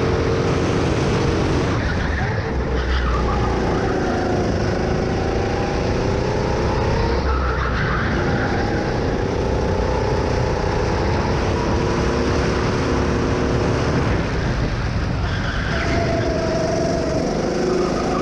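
Go-kart engine heard from onboard, its pitch falling and rising with the throttle through a series of corners, over a steady low rumble of wind on the microphone.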